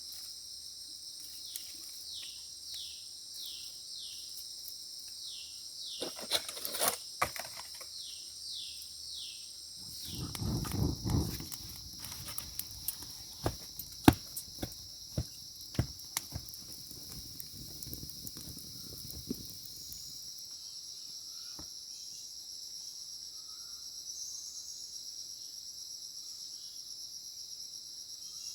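Crickets or other insects keep up a steady high drone, with short falling chirps repeating over the first third. From about six seconds in there is a string of sharp knocks and clicks, with a low rustling around ten to twelve seconds. The knocks stop after about nineteen seconds.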